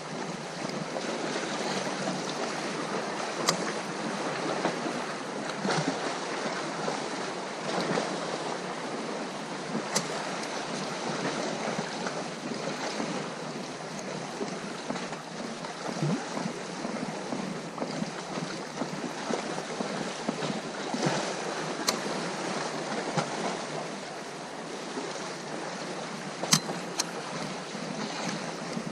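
Sea surf washing in a steady rush, with wind on the microphone. A few sharp clicks cut through it, four times, spread across the stretch.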